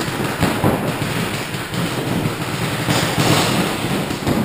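Many electronic paintball markers firing rapidly at once, a dense rattle of shots that blurs into a steady rain-like roar echoing in an indoor arena.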